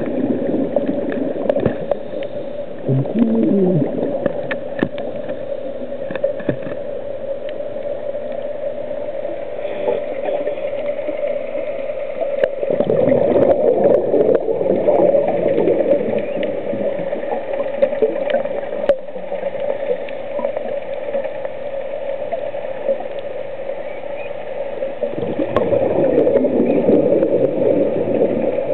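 Underwater sound picked up by a diver's camera during a scuba dive: a steady hum, with gurgling bursts of exhaled regulator bubbles about halfway through and again near the end.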